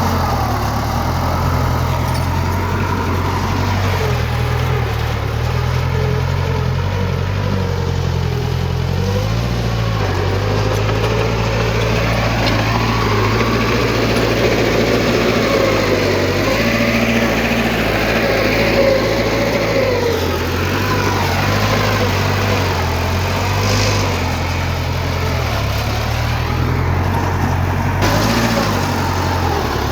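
Heavy diesel engine of earthmoving machinery running steadily under varying load, its pitch shifting a little every few seconds, with a wavering whine above it.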